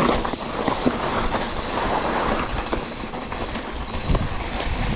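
Wind buffeting the microphone over the rattle and knocks of a mountain bike riding down a rough dirt trail, with scattered sharper clacks from the bike near the end.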